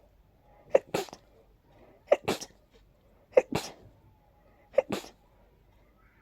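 A person sneezing four times in quick succession, about one sneeze every second and a half, each a short catch followed by the sneeze burst. These are wet, pollen-allergy sneezes in a hay-fever fit.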